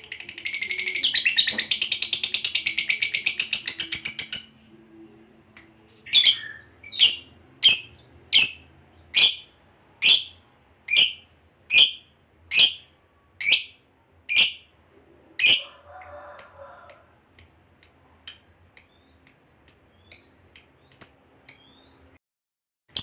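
Fischer's lovebird giving a fast, unbroken chattering trill, the 'ngekek' call, for about four seconds. It then gives a string of loud single high calls just under a second apart, then quicker, fainter chirps, two or three a second, that stop shortly before the end.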